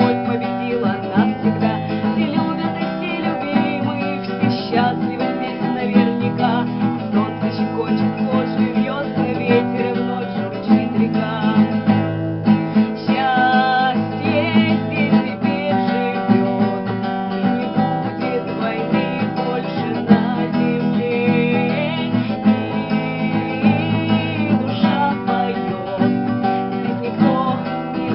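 Background music led by a strummed acoustic guitar, steady throughout.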